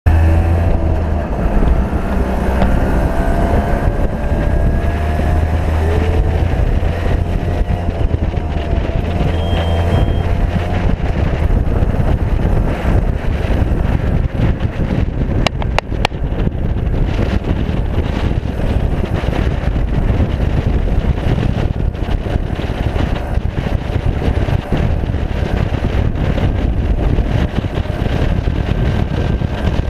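Auto-rickshaw engine running steadily at road speed, with wind buffeting the microphone.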